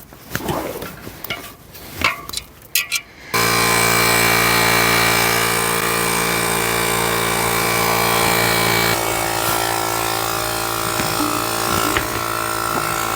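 Small portable electric tire inflator running steadily, pumping air into a freshly mounted e-bike tire; it starts abruptly about three seconds in after a few handling clicks, and its tone shifts slightly about nine seconds in.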